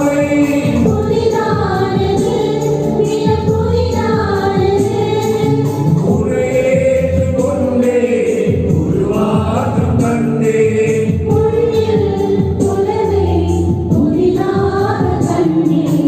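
Church choir singing a Tamil Catholic devotional hymn, voices held together in long sustained phrases over a steady low accompaniment.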